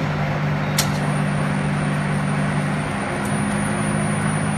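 Okuma 762S Big Bore CNC turning center powered up and running, giving a steady machine hum. A single sharp click comes about a second in.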